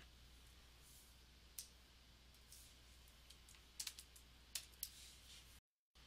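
Near silence: faint room tone with a few scattered soft clicks and taps, cutting to dead silence for a moment near the end.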